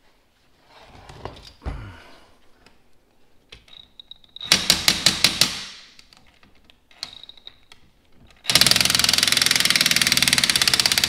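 Cordless impact wrench backing off the threaded rods of coil spring compressors to release the tension on a shock's coil spring. A short whine and about a second of rapid hammering about four seconds in, a brief whine near seven seconds, then steady continuous hammering from about eight and a half seconds on; a dull thump near two seconds in.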